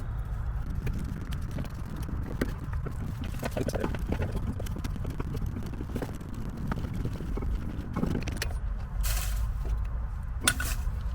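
Brake caliper piston being pressed back with the old brake pad: faint metal clicks, knocks and scrapes of tool, pad and caliper, over a steady low rumble, with two short noisy bursts near the end.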